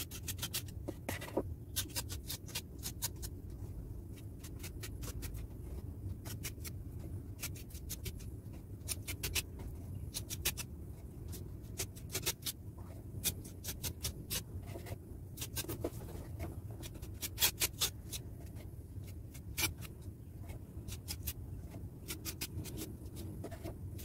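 Putty knife scraping and tapping as wall putty is scooped from a tub and spread over a damaged wall: short, irregular clicks and scrapes over a low steady hum.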